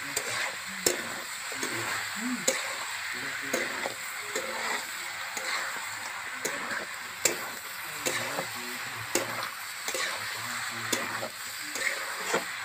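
Chicken pieces sizzling in mustard oil in a metal kadhai, stirred with a metal spatula that scrapes and clinks against the pan every half second to a second.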